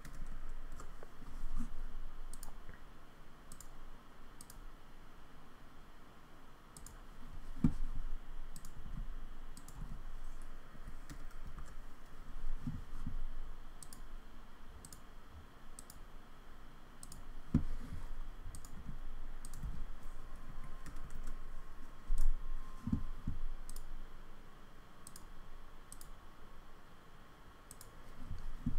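Computer mouse and keyboard clicks: scattered single clicks at an irregular pace, with a few dull thumps now and then.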